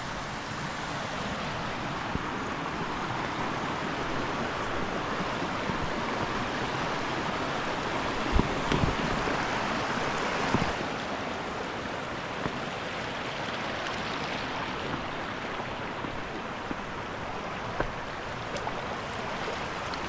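Rain-swollen, muddy stream rushing over and around rocks below a waterfall: a steady rush of water. There are a couple of brief low thumps about halfway through.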